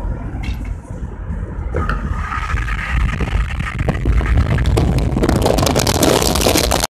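Loud low rumbling noise that swells from about two seconds in, gathers a crackle, then cuts off abruptly near the end.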